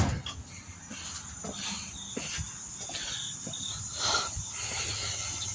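Small screwdriver clicking and scraping on the plastic cover of a door lock actuator, with heavy breathing close to the microphone and a steady faint high-pitched tone behind.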